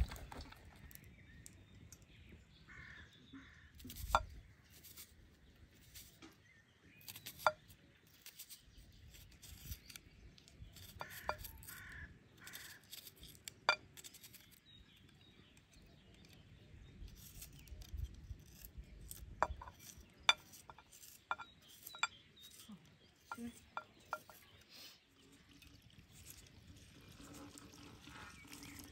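Faint, scattered sharp clicks and clinks of hand food preparation: a knife cutting through an onion held in the hand, and stainless steel pots being handled.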